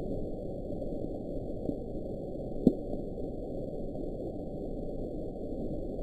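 Hydrophone recording of the Bloop, an unexplained underwater sound, played at 16 times its original speed: a steady low rumble of ocean noise, with a faint brief rising blip about a second and a half in and a short, sharp rising chirp near the middle, the loudest moment.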